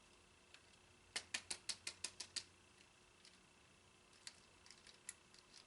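Small sharp plastic clicks and taps from handling the rotary shaver's heads: a quick run of about eight clicks in just over a second, then a few faint scattered ticks.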